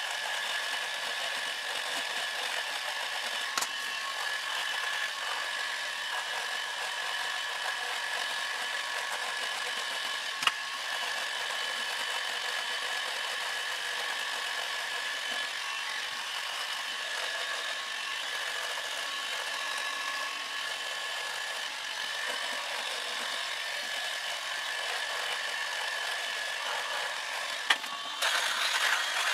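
Corded three-head rotary electric shaver running with a steady whine as it is worked through a long, six-month beard, with a few sharp clicks along the way. Near the end a click is followed by a louder, rougher rattling buzz.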